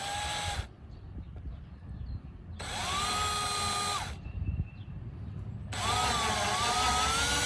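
Electric power drill run in three bursts, a short one, one of about a second and a half and a longer one, each whining up to speed and winding down, drilling a stop hole at the end of a crack in a plastic fender to keep the crack from spreading. The pitch wavers under load in the longest run.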